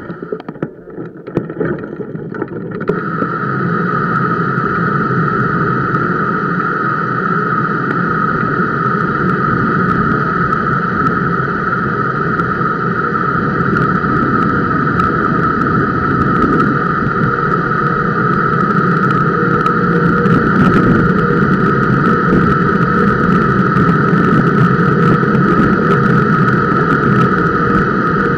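Bicycle disc brakes dragging through a steep descent: semi-metallic pads giving their familiar rushing squeal against a Centerlock-mounted rotor, carried loud through the camera mount, over the rumble of the tyres on the road. It builds over the first few seconds, then holds steady. The squeal under partial braking is, per the rider, typical of Centerlock rotor mounting.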